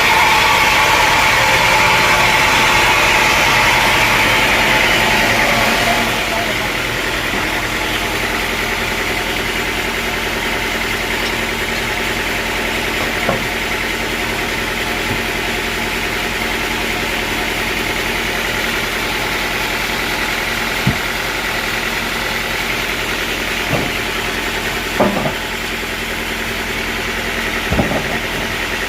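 Sawmill engine running with its blade finishing a cut in log wood for about the first six seconds, then dropping to a steady idle. A few short knocks come in the second half.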